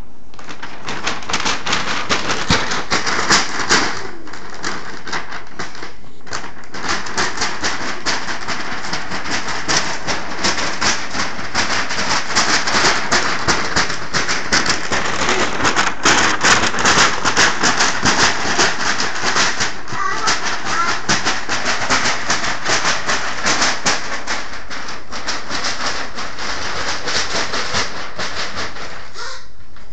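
Brown paper bag being crinkled and rustled, a dense irregular crackle with brief lulls and the busiest stretch just past the middle.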